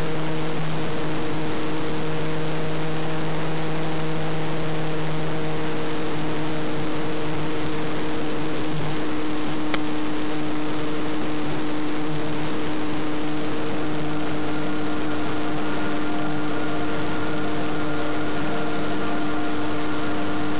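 Electric motor and propeller of an Easy Glider RC motor glider running steadily under power, a humming whine of several steady tones over a rush of air on the onboard camera.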